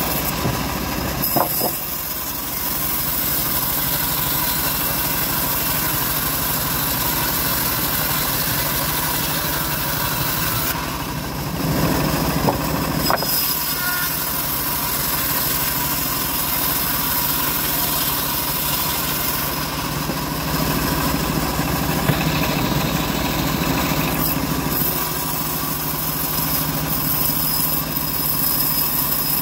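Home-built bandsaw mill running steadily while its blade rips a teak beam lengthwise, a constant machine hum under the hiss of the cut. The sound shifts briefly about halfway through, then carries on steadily.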